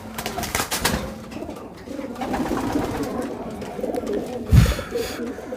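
Racing pigeons cooing in a small loft room, with a few sharp clicks around the first second and one loud thump a little before the end.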